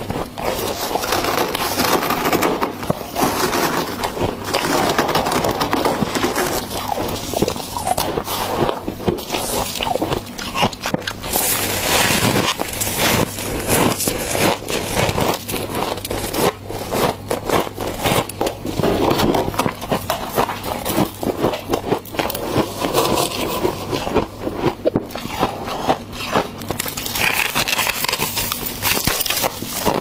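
Close-up crunching and chewing of mouthfuls of soft freezer frost, a dense, continuous run of crackles and scrapes.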